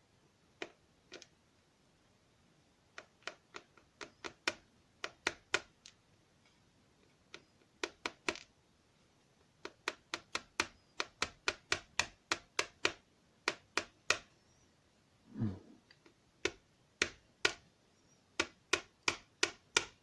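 Pins and springs being dumped out of a DOM ix6 SR euro cylinder lock: many sharp small clicks in irregular clusters, with short pauses between the bursts.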